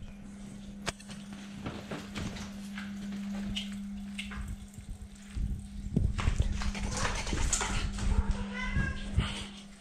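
A cat meowing briefly near the end, a short run of bending pitched cries, over a steady low hum and scattered knocks and rustles.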